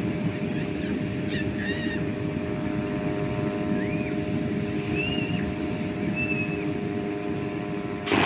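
A steady low engine-like drone with a constant hum, overlaid by several short, high arched chirps. A brief loud clatter comes near the end.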